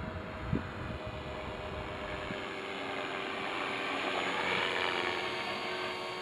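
Align T-Rex 450 Pro electric RC helicopter flying: a steady whine from its motor and rotors, swelling louder as it comes closer about four seconds in. A low rumble runs through the first two seconds, and there is a brief thump about half a second in.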